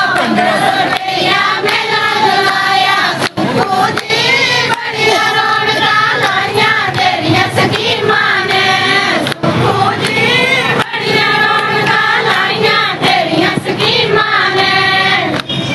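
A group of high voices, mostly women, singing together in unison, with a few scattered claps.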